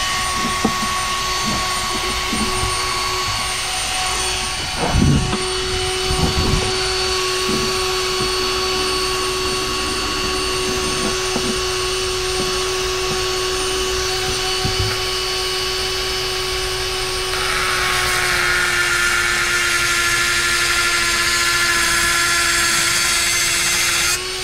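Handheld rotary tool with a thin cut-off wheel running at a steady high whine, with a few knocks about five seconds in. About three-quarters of the way through the wheel bites into steel, adding a louder, harsher grinding hiss as it throws sparks. It is switched off right at the end.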